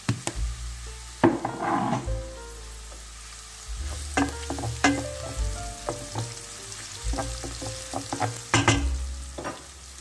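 Onions and peppers sizzling in a stainless steel pan while a utensil stirs them, knocking and scraping against the metal pan again and again, with short ringing clinks after some of the knocks.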